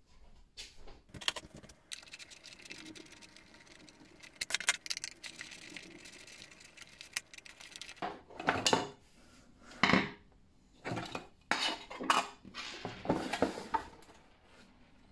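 A small screwdriver turning out the screw that holds a diecast model car to its mounting plate, with light metal clicks and scrapes. From about eight seconds in come louder scuffs and knocks of the cardboard box and its insert being handled.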